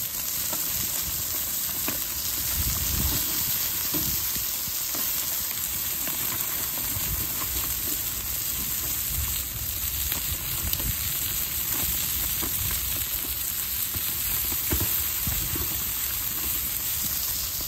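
Burgers, chicken drumsticks and hot dogs sizzling steadily on foil over a grill, with small pops now and then.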